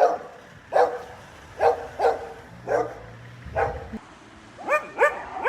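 Dog barking: about six sharp barks in a row, then three higher-pitched yelping barks in quick succession near the end.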